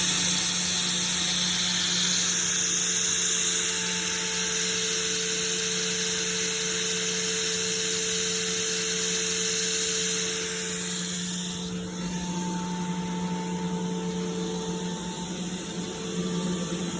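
Sullivan Palatek 10 HP rotary screw air compressor running, a steady hum under a hiss of air that eases off about twelve seconds in.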